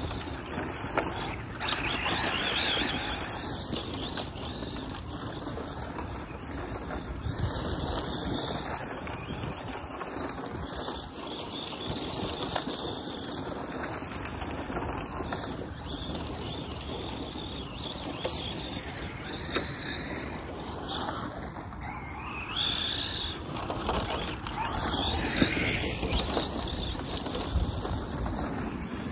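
ARRMA Mojave 4S radio-controlled desert truck driving and sliding on loose dirt at a distance: its brushless electric motor and tyres give a steady, noisy rush. It grows louder a couple of seconds in and again near the end, with a short rising and falling whine.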